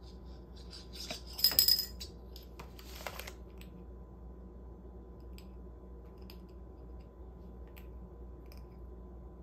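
A bottle cap clattering on a tile floor as a cat bats it with its paw: a quick run of sharp clicks about a second and a half in, a shorter run near three seconds, then a few faint ticks.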